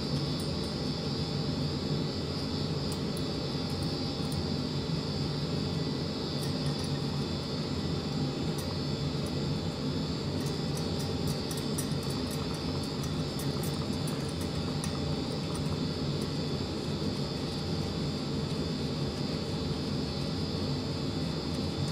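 A steady, even droning noise, like a shop fan or air conditioner running, with faint light metallic clicks mostly in the middle stretch as shoulder bolts are turned in by hand through the locking plate on a Ford flathead's cam gear.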